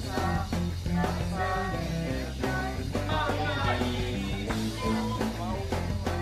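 Rock music: a band track with a steady bass line and a regular drum beat, and a melody line above.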